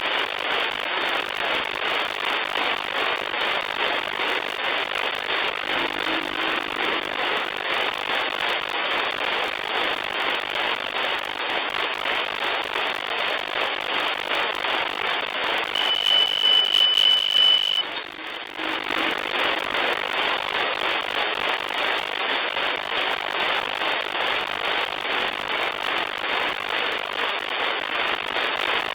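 Static from a shortwave radio receiver on the 40-metre amateur band, a steady hiss in the single-sideband audio passband with no station transmitting. A high steady whistle, a carrier or heterodyne tone, sounds for about two seconds past the middle.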